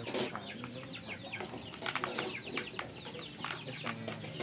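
Chickens clucking in the yard, with many short, high, falling chirps and a few sharp clicks.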